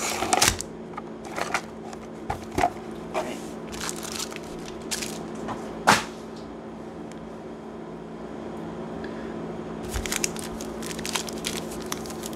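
Foil booster-pack wrappers crinkling and crackling as they are pulled out and handled, in sharp separate crackles over the first six seconds, then, after a lull, a dense run of crinkling as the packs are shuffled together.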